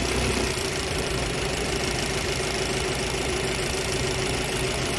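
Honda inline-four engine with an external distributor idling steadily at an even, unchanging speed, with a steady high hum.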